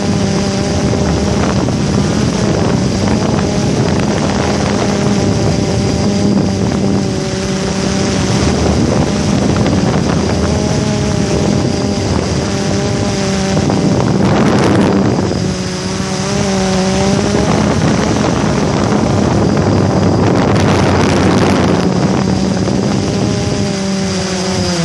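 Motor and propellers of the aircraft carrying the camera, running steadily. It is a hum of several tones that drift slightly up and down in pitch, with wind rushing over the microphone.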